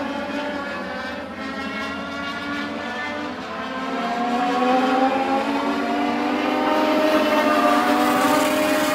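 Several Legends race cars with Yamaha 1250 cc motorcycle engines running on the oval, more than one engine heard at once. From about four seconds in they grow louder and rise in pitch as the cars come through the turn toward the stands.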